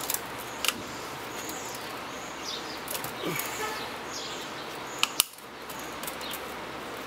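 Wire cutters snipping through the copper windings of a vacuum cleaner motor: a few sharp clicks, the loudest a close pair about five seconds in, over a steady hiss with faint high chirping squeaks.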